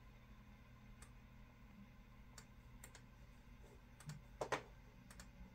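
Faint, scattered computer mouse button clicks over a low hum, with a louder pair of clicks about four and a half seconds in.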